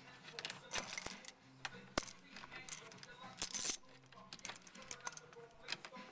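Metal hand tools and hardware clinking and rattling: scattered clicks, one sharp knock about two seconds in, and a jangling rattle around three and a half seconds in.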